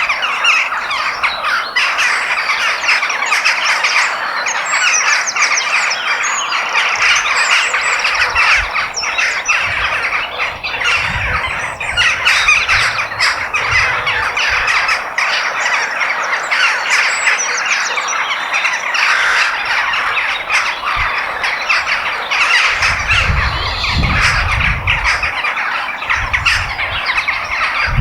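Dense chorus of many birds calling and squawking at once, steady throughout. A low rumble comes in about three-quarters of the way through.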